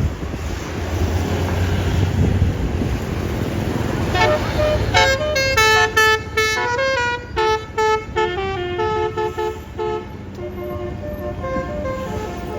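Low rumble of a vehicle engine, then about four seconds in a bus's multi-note 'basuri' telolet horn plays a quick melody of short stepped notes that stops about ten seconds in.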